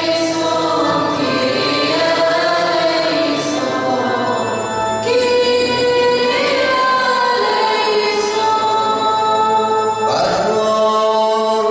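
Voices singing Syriac liturgical chant: a slow melody with long held notes.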